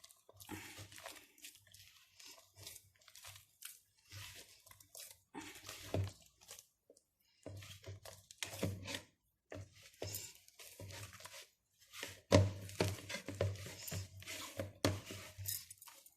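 Hands mixing a soft, sticky brioche dough as warm milk is worked in, giving irregular wet squelching and tearing sounds in short bursts with brief pauses.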